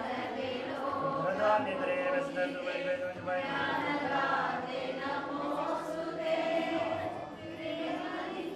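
A group of voices chanting a devotional hymn in unison, with long held notes.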